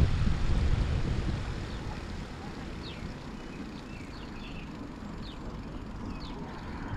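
Low rumble of wind and ride noise on a bicycle-mounted camera, fading over the first two seconds or so as the bike slows to a stop and then settling into a quieter steady rumble, with a few faint short high chirps in the middle.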